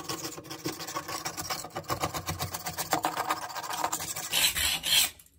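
Steel putty knife rapidly scraping flaky, dusty cementitious backing off a bathroom wall in quick back-and-forth strokes. It grows louder for a moment near the end. The flaky backing is being scraped clean because nothing sticks to dust.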